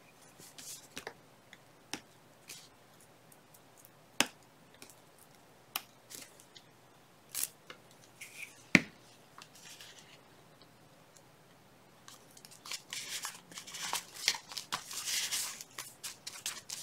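Paper-crafting handling: a few scattered sharp clicks and taps, the loudest about nine seconds in, then from about twelve seconds in a steady rustling and rubbing of paper as a paper tag is pressed down by hand onto a journal page.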